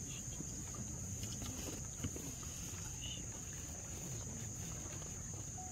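Steady high-pitched drone of insects over a low murmur of background noise, with a few faint small knocks.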